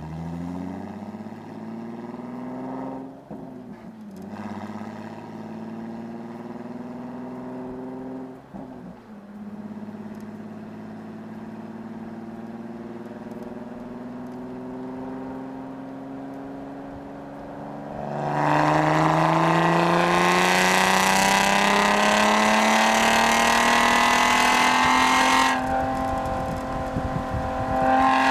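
Infiniti G35's VQ35DE V6 through a Motordyne Shockwave exhaust with ART pipes, the revs climbing slowly at part throttle. About two-thirds of the way in it goes much louder, with the pitch rising steeply as at wide open throttle. The noise eases off briefly near the end, then comes back loud.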